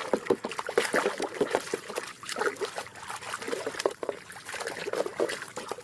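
Water splashing and trickling as a small toy is washed by hand, with many quick irregular drips and splashes.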